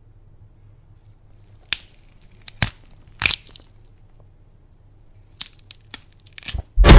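A few sharp crackling, crunching clicks over low room tone, then a tighter cluster of them, and a sudden, very loud burst of harsh noise right at the end.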